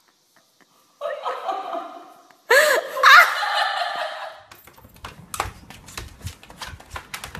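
A person laughing and squealing, briefly about a second in and louder from about two and a half seconds, then from about four and a half seconds a quick run of sharp clicks and scratches from a puppy pawing at a door.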